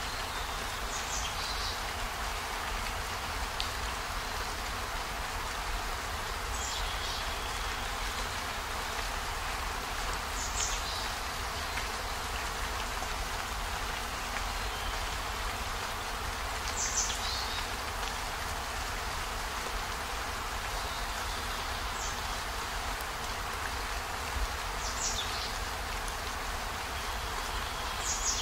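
Steady rain falling, an even hiss with a low rumble beneath. Every four to six seconds a brief, higher-pitched sound cuts through it.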